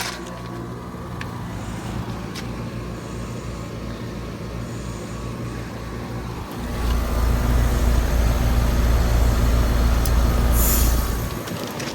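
Two Trane XR14 heat pump outdoor units running together in defrost mode, a steady hum with a hiss. About six and a half seconds in, a much louder low rumble comes in for about five seconds, then drops back.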